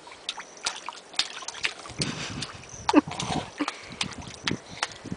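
Toddler splashing in a small inflatable paddling pool, hands and plastic toys slapping the water in irregular small splashes and sloshes that thicken after about two seconds. A short falling squeal comes about three seconds in.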